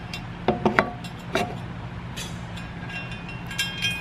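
Metal knocks and clinks with a short ring as the steel electromagnet is handled inside the powder-coated sheet-steel box: three quick knocks about half a second in, another soon after, and a couple of higher, ringing clinks near the end.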